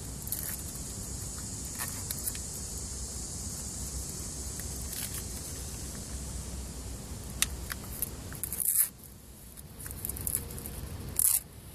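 Hands fitting a LiPo battery into an RC buggy: small clicks and rustles from the plastic XT60 connectors and battery strap over a steady hiss. There are two louder scraping rustles, one near the end and one about three quarters of the way through.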